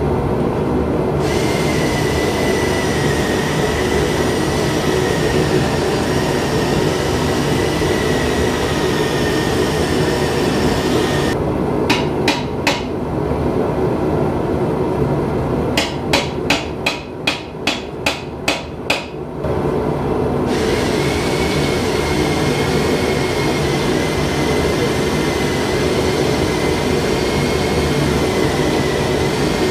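Hammer strikes ringing on hot steel at the anvil: three blows, then a quick run of about nine at roughly three a second, near the middle. Before and after them a steady, loud mechanical roar runs on in the shop.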